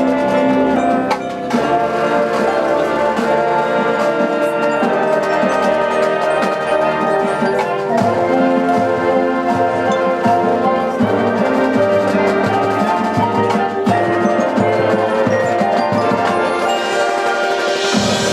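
High school marching band playing its field show: held wind and brass chords over drums and mallet percussion, with a bright swell building near the end.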